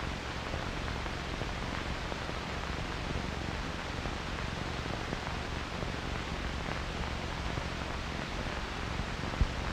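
Steady, even hiss with a faint low hum underneath, unchanging throughout, with no distinct events.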